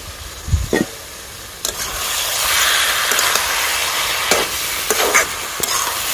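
A knock under a second in as the lid comes off the kadai, then ridge gourd and potato in a mustard-oil masala sizzle loudly from about two seconds in, with a few sharp clicks of the spatula against the pan as it is stirred.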